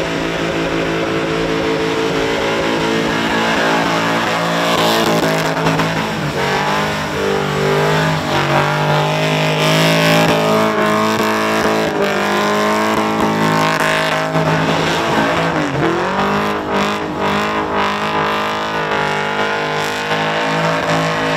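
Supercharged Commodore ute's engine held at high revs through a burnout, rear tyres spinning in smoke. The revs stay steady with small wavers, dipping and climbing back about 16 seconds in.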